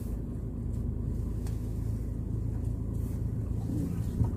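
Car engine running at low speed, heard from inside the cabin as a steady low hum, with a short knock near the end.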